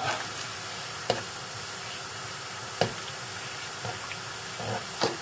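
Metal spoon stirring egg noodles in a saucepan of boiling water, knocking against the pan several times over a steady hiss.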